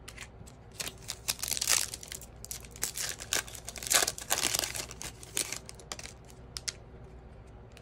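Foil trading-card pack wrappers crinkling in quick, irregular crackles as they are handled and torn open, busiest about a second and a half in and again around four seconds, thinning out near the end.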